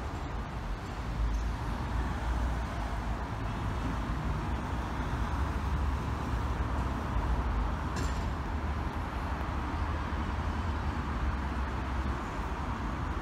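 Steady road-traffic noise with a heavy low rumble, and a short click about eight seconds in.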